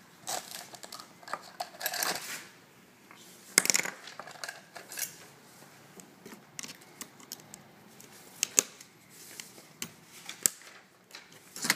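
Small metal clicks and scrapes of a precision screwdriver and tools being handled and worked against the steel heat-sink plate and screws of a laptop video card, with a louder clatter nearly four seconds in.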